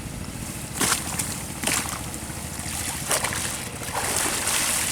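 River water splashing and sloshing: three short splashes in the first three seconds, then a longer sloshing wash near the end, over a steady low rumble.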